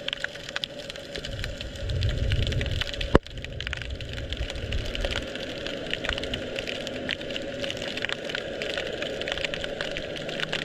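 Underwater sound from a camera held below the surface: a constant dense crackle of tiny clicks over a steady hum, with a low rumble building from about a second in and one sharp knock about three seconds in.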